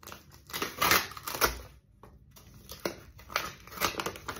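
A small white packet rustling and crinkling as it is opened by hand to get the card out, in a series of irregular crackles, the loudest about a second in.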